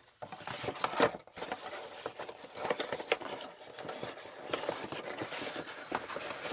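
Cardboard model-kit box being handled: the lid fitted back over the bagged plastic parts and the box turned over, giving a run of rustles, scrapes and light knocks, one a little louder about a second in.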